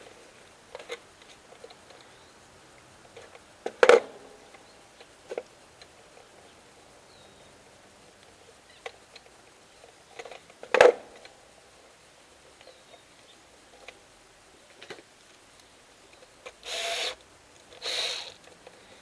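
Hand work on doorbell wiring: scattered small clicks and light handling noise from wires and tools, with two sharp, louder clicks several seconds apart and a few short scraping rustles near the end.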